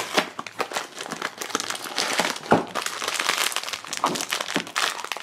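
Silver foil blind-bag wrapper crinkling and crackling in the hands as it is pulled from its small cardboard box and worked open, a dense, irregular crackle.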